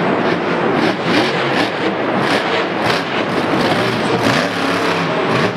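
Monster truck's supercharged V8 engine revving up and down repeatedly at slow speed, the pitch rising and falling over and over.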